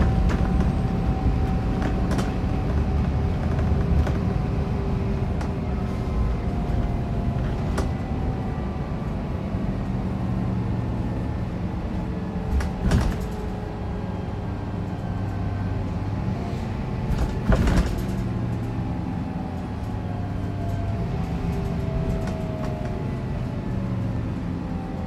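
Scania K410EB6 coach heard from inside the passenger cabin while under way: engine and road noise, with faint whining tones that slowly rise and fall with engine speed. A few sharp knocks or rattles come through, the two loudest a little past the middle.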